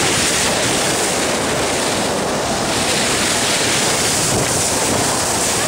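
Steady rush of sea water and wind buffeting the microphone as a small boat moves across the water.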